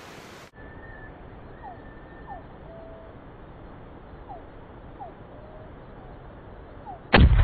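Faint outdoor hiss with a few short bird chirps. Near the end comes a single loud .270 Winchester rifle shot, its report rolling on in a long echo.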